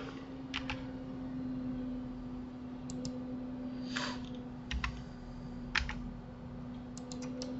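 Computer keyboard keys and mouse buttons clicking now and then, a dozen or so short clicks with a quick run of them near the end. A steady low hum runs under them.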